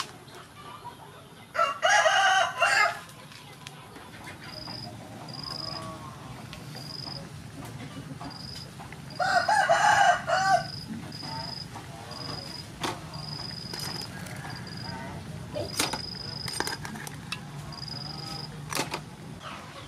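A rooster crows twice, once about two seconds in and again about halfway through, each crow lasting a second or so. Between and after the crows a short high chirp repeats about once a second over a steady low hum, with a few sharp clicks near the end.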